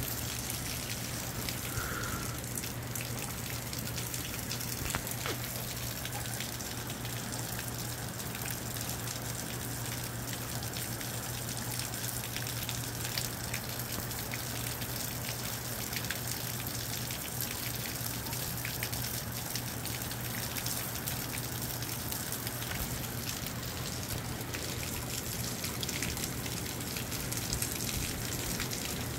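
Moderate rain falling steadily: a constant hiss dotted with the ticks of single drops.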